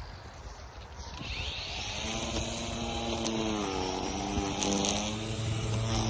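Small engine of a handheld yard-care power tool revving up about a second in, then running steadily, its pitch sagging briefly midway and recovering.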